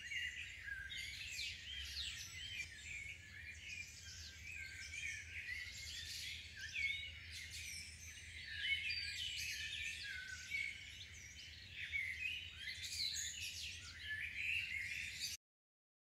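Dense chorus of songbirds chirping and trilling, many short rising and falling notes overlapping, over a faint low hum. It cuts off abruptly near the end.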